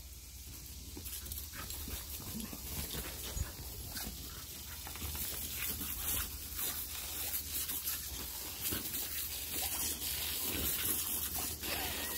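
A pit bull puppy snapping and biting at a jet of water, with dog breathing and the hiss and splash of the spray on the grass. The spray's hiss is steady under many short irregular splashes, growing slightly louder.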